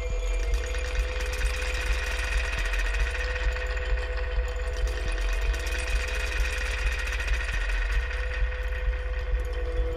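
Droning, machine-like soundtrack music: a deep rumble under held steady tones, with a regular pulse about twice a second.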